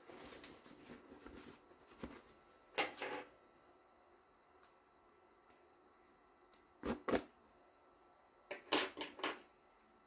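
Hands handling a polyester polo shirt and the stiff cutaway stabilizer backing on its inside: a soft fabric rustle at first, then a few short, separate crinkles and knocks of the backing against the table, with a quick cluster of them near the end.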